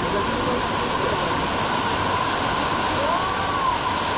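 Waterfall water rushing in a steady, dense roar. A faint tone rises and falls once, about three seconds in.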